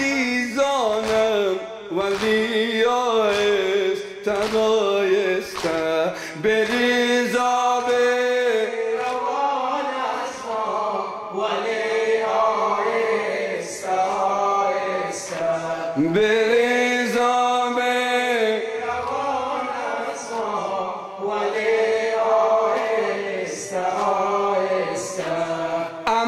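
A man chanting a Shia mourning lament (latmiya) in Dari into a microphone, one melodic unaccompanied voice drawing out long wavering lines, over sharp chest-beating slaps at about one a second.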